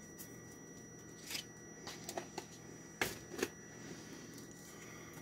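A few light clicks and taps as a round plastic tub and its lid are handled, the loudest about three seconds in, over a faint steady hum.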